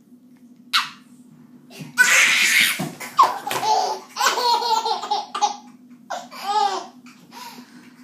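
Baby laughing in repeated bursts of hearty belly laughter, the loudest and longest a couple of seconds in, then shorter bursts near the end.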